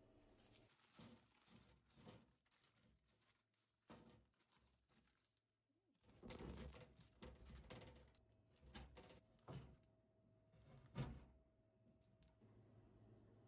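Faint handling noises: rustling and crinkling in scattered bursts, with a few soft knocks, the sharpest a little after the middle.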